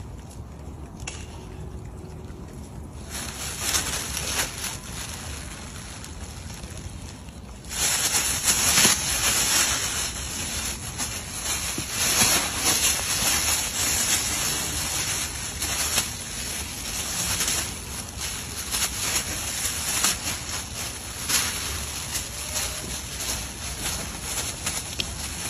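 Thin plastic bag crinkling and rustling as a young monkey tumbles in it and drags it over the ground, a dense run of crackles. It starts softly a few seconds in and becomes much louder after about eight seconds.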